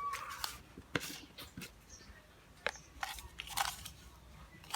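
A few sharp clicks and taps with short scraping, rustling noises in between, as of things being handled.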